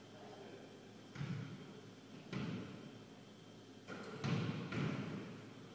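Basketball bouncing on a hardwood gym floor, dull thumps that ring briefly in the hall: two about a second apart, then a quicker cluster of thumps near the end.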